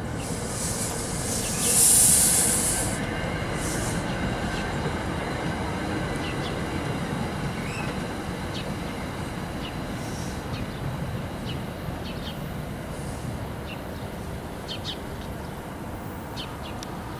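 NJ Transit commuter train of passenger cars running past on the rails and moving away, wheels rumbling and clicking on the track, with a brief loud high hiss or squeal about two seconds in; the sound slowly fades as the train recedes.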